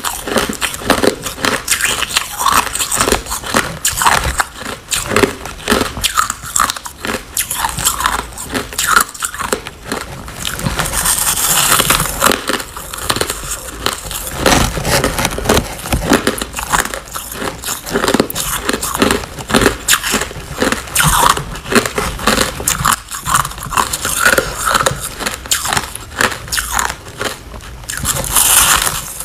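A person biting and chewing a white, compacted chunk of crushed ice: many crisp crunches and crackles in quick succession. There are longer, hissing crushes about eleven seconds in and again near the end.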